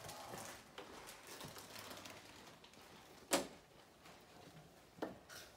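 Quiet shuffling and rustling of people moving close to the microphone, with one sharp click about three seconds in and a fainter one near the end.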